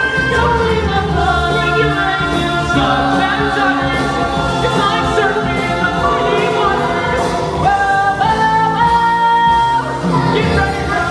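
Show-tune music with a group of voices singing, from a stage musical number.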